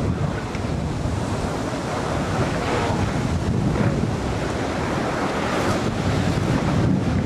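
Surf breaking and washing steadily, with heavy wind rumble on the microphone.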